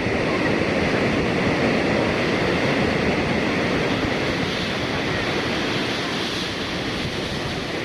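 Small waterfall and stream flowing over rocks: a steady, unbroken rush of water.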